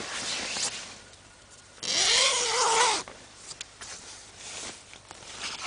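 A drawn-out, wavering vocal sound lasting about a second, starting about two seconds in, over quieter rustling of tent fabric.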